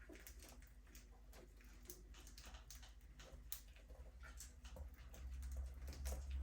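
Budgerigars in an aviary, chirping faintly among scattered short clicks and taps. A low rumble rises near the end.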